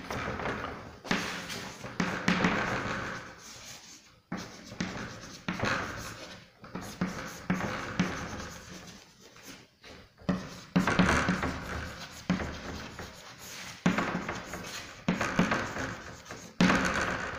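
Chalk scratching and tapping on a chalkboard as a line of words is written, in a series of strokes with short pauses between them.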